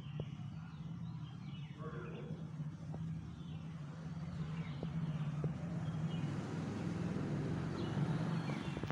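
Outdoor ambience: a steady low hum with scattered short bird chirps.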